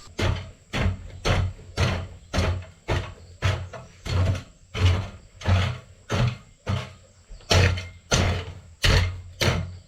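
Steady series of heavy hammer blows, about two a second, each a dull thud with a sharp crack, as in hammering at stone.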